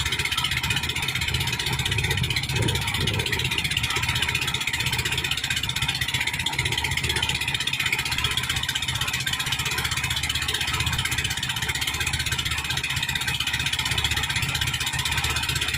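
Small fishing boat's engine running steadily while under way, with a steady hiss over the low rumble.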